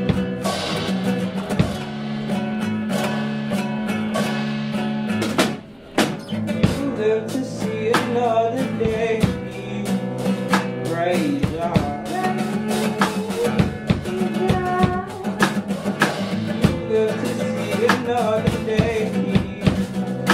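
Acoustic guitar and drum kit playing a song together, the guitar's chords ringing over a steady beat, with a short drop in the playing about five and a half seconds in.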